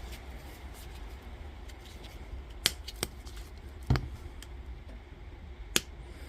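Four sharp clicks, the third a heavier knock, from handling angle grinder parts and tools on the bench during reassembly.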